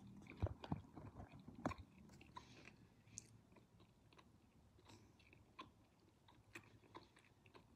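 Faint chewing of a person eating, with scattered soft mouth clicks and small crunches, busiest in the first two seconds and thinning out after.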